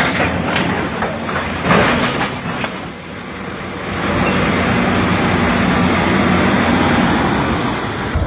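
A run of heavy metal clanks and crashes as a Volvo tracked excavator slides off a lowboy trailer and tips over onto its side. After that comes a steady noise with a low hum.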